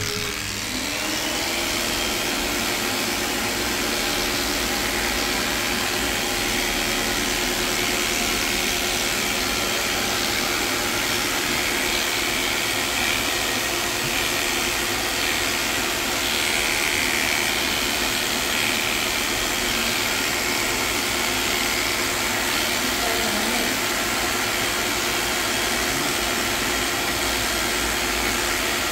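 Cordless electric dog clipper running steadily, a constant motor hum and blade buzz as it shaves through a matted coat.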